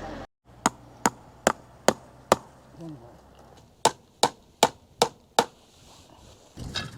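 Hammer blows during fence building: two runs of five quick, sharp strikes, about two to three a second, with a short pause between the runs.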